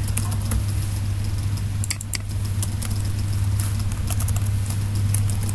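Computer keyboard keys clicking in short, irregular runs of typing over a steady low electrical hum.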